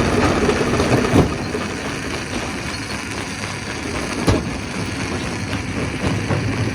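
Stone crusher running, with a steady rumbling clatter of rock being crushed. Sharp knocks stand out about a second in and again just after four seconds.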